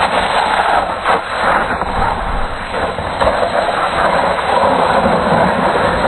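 Loud steady rushing noise of wind buffeting a handheld phone's microphone, with a brief dip about a second in.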